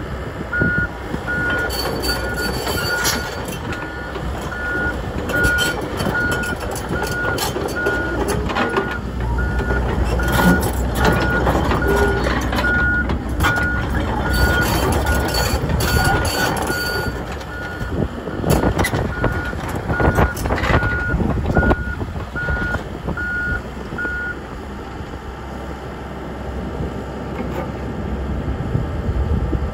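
Komatsu PC78US-6 excavator's diesel engine running under hydraulic load, with its warning alarm beeping steadily about once a second. The alarm stops a few seconds before the end. Occasional metallic clanks come from the working machine, and the engine is loudest in the middle stretch.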